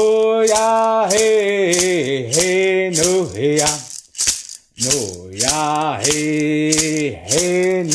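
A man singing a traditional Cherokee Friendship Dance song in long, bending held notes over a hand rattle shaken in a steady beat. The singing breaks off briefly about halfway while the rattle keeps time.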